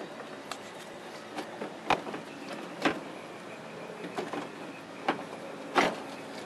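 A plastic headlight assembly knocking and scraping against the truck's front-end panels as it is worked into its opening, with a handful of sharp knocks at irregular intervals, the loudest about 2, 3 and 6 seconds in.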